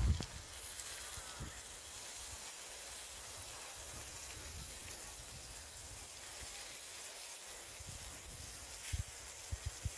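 Steady, faint sizzling of grilled octopus and onions on a hot barbecue tray. A few short low bumps come at the very start and again just before the end.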